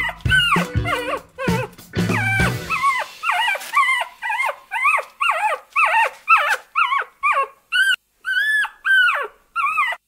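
Polar bear cub giving a rapid string of short, high whining calls, each bending up and down in pitch, about two a second. Background music plays under the first few seconds, then drops out.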